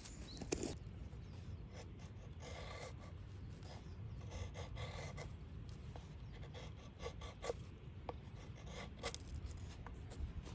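Rasping scrapes, two short strokes a couple of seconds apart, with scattered light clicks over a steady low rumble.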